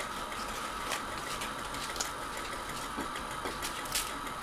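Steady background hum and hiss with a few faint ticks; about four seconds in, hands start tearing a flaky layered parotta, giving brief soft crackles.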